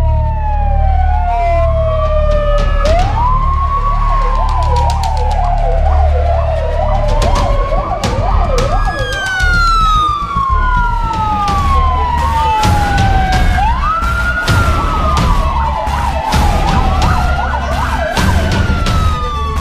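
Several emergency-vehicle sirens from police vehicles and ambulances sounding at once: overlapping wails that each rise in about a second and fall more slowly, broken in places by a fast warbling yelp. A low rumble of vehicles runs underneath.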